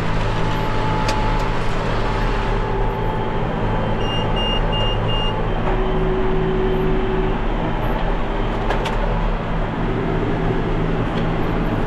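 John Deere 7220 tractor running steadily while powering a John Deere 469 round baler as a bale is finished and dumped. An alarm beeps four short times about four seconds in.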